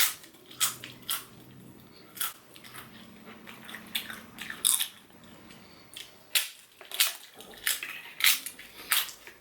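Close-up eating sounds: crisp bites and chewing, with a dozen or so sharp crunches at irregular intervals.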